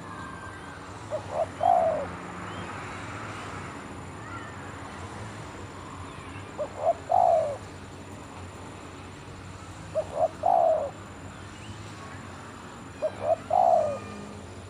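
Spotted dove cooing: four phrases a few seconds apart, each two short notes followed by a longer, louder note.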